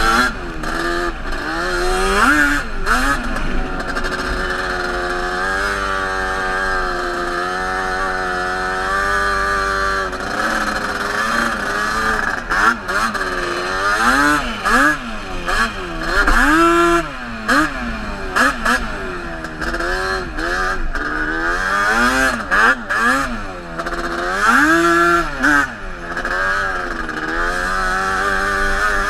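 Sport quad ATV engine revving up and down repeatedly as the throttle is opened and closed, with a few brief clatters.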